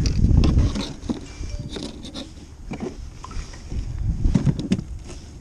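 Handling noise on a kayak: irregular low thumps and knocks with scattered clicks and rustling, heaviest at the start and again about four seconds in.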